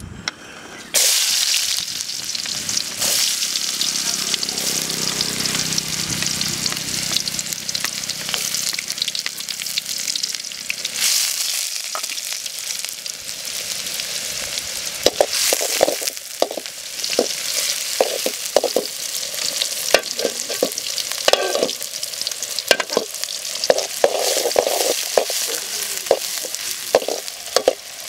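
Chopped onions sizzling as they fry in hot oil in a metal bowl, the sizzle starting suddenly about a second in. From about halfway on, a metal spoon scrapes and clicks against the bowl as the onions are stirred.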